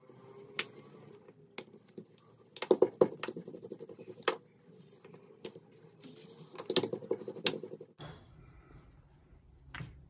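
Wooden rolling pin rolling paratha dough out on a hard countertop: sharp clicks and knocks of the pin on the counter, some coming in quick clusters.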